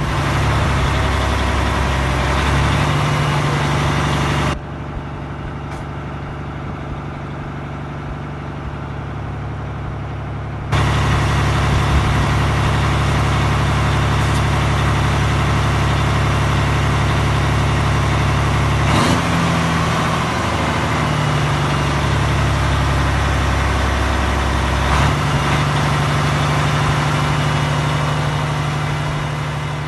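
Heavy diesel engine of a dump truck running steadily with its dump body raised, the engine note stepping down and up again a few times.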